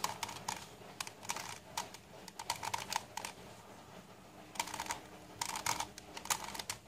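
Plastic face-turning octahedron puzzle being twisted by hand: quick clusters of clicks and clacks as its faces turn, with short pauses between moves.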